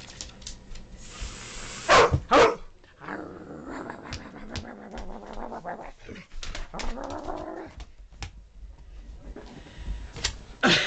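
A husky-type dog barks twice, loud and sharp, about two seconds in. It then makes drawn-out play growls, with scattered short clicks and taps.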